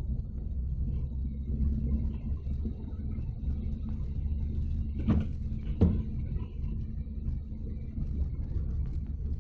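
A car driving on a mountain road, heard from inside: a steady low rumble of engine and tyres. Two short thumps a little over five and six seconds in stand out as the loudest sounds.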